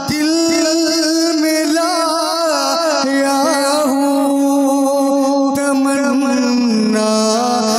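Male voice singing a naat, an Urdu devotional song, drawing out one long note with small wavering ornaments, then stepping down to a lower note near the end.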